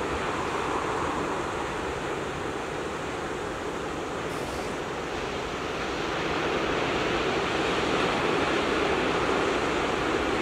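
Ocean water washing over a rocky shore: a steady rush of surf that swells a little past halfway.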